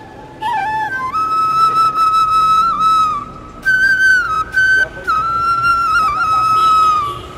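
Flute music: a slow, high melody of a few long held notes, each with small pitch turns and slides between them.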